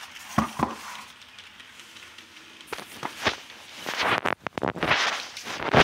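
A styrofoam packaging tray with plastic-wrapped parts being handled and turned over: a few scattered knocks, then dense crinkling and rustling from about four seconds in.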